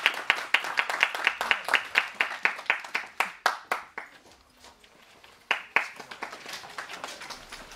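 Small audience clapping, thinning out and stopping about four seconds in, then a couple of stray claps.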